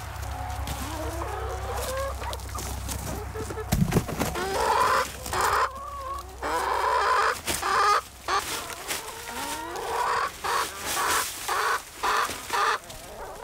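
A flock of hens clucking and squawking, with many short calls overlapping from about four seconds in. There is a thump just before the calls start, and scattered rustling and knocks come from compost being dumped and bags being handled.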